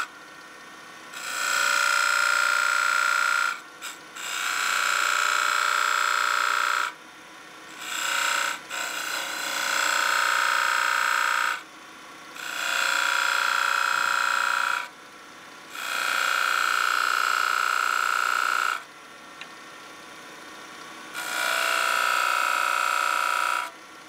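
A turning tool cutting spinning pine on a wood lathe in repeated passes. There are about seven cuts of two to three seconds each, every one giving a steady high ringing tone over a hiss, with the lathe running more quietly between them.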